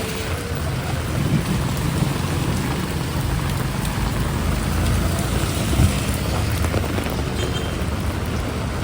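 Heavy rain falling steadily, with a low rumble underneath and one brief knock about six seconds in.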